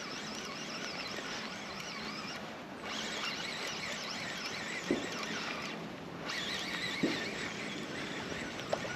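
Spinning reel being cranked steadily, winding line in on a hooked fish, with two short pauses in the winding and a few small clicks.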